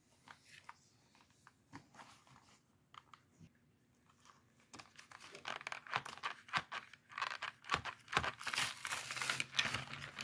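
Plastic candy packaging crinkling and tearing as it is worked open, a stubborn, hard-to-open wrapper. It is quiet for the first half with a few light taps, then turns into dense, continuous crackling from about five seconds in.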